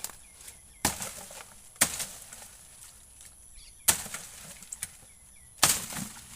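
Four sharp chopping strikes of a blade into wood, irregularly spaced, each followed by a brief rustle.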